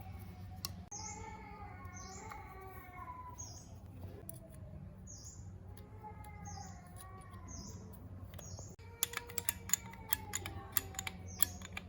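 A bird chirps about once a second over a steady low hum. From about nine seconds in, there is a quick run of sharp clicks and taps.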